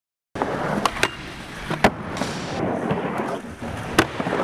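Skateboard wheels rolling over the concrete floor of a large indoor skatepark, a steady rumble broken by four sharp clacks of the board: two about a second in, one near two seconds, one near the end.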